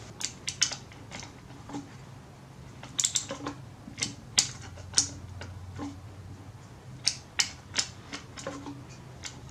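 Irregular metallic clicks and small knocks of a hand tool working the carburetor's mounting fasteners on a 26cc weed eater engine as they are tightened down.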